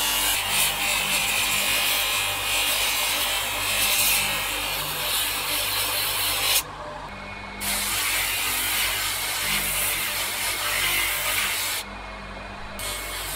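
Steel axe head being ground on an abrasive sanding disc driven by a bench-mounted electric motor: a loud, steady rasping over the motor's hum. The rasping stops twice for about a second, when the steel is lifted off, leaving the motor hum alone.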